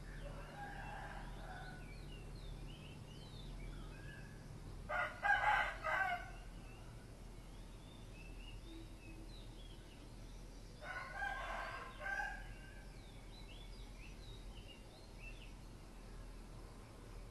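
Roosters crowing: three crows about five seconds apart, the middle one loudest, with small birds chirping faintly throughout.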